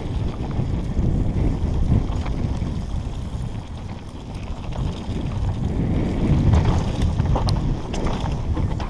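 Wind buffeting a helmet camera's microphone over the low rumble of a downhill mountain bike's tyres rolling down a dirt singletrack, rising and falling with speed. A few sharp clicks from the bike about seven seconds in.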